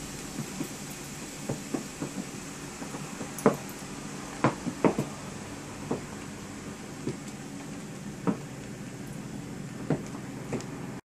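Irregular small clicks and crackles from the plastic wrap of a compressed spring mattress as it expands, scattered over a steady background hum. The loudest few come a few seconds in, and the sound cuts off suddenly near the end.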